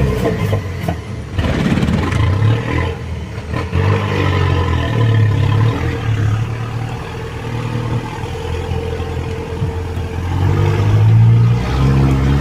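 A motor vehicle's engine running and revving, its pitch rising and falling, louder near the end.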